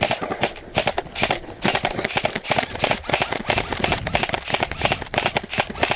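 Irregular sharp clicks and crunches: airsoft rifles firing scattered shots while players walk on gravel.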